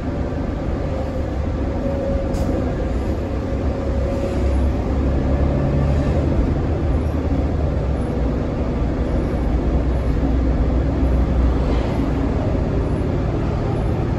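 The Cummins ISL9 inline-six diesel and Allison B500R transmission of a 2012 New Flyer D60LFR articulated bus running under way, heard inside the passenger cabin as a steady low rumble with road noise. The rumble grows louder about four and a half seconds in and eases off again near the end.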